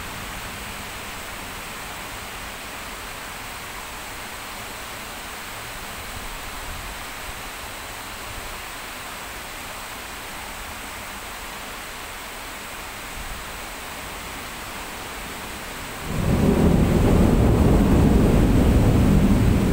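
Steady hiss of heavy rain. About sixteen seconds in, a loud rumble of thunder rises suddenly and carries on to the end.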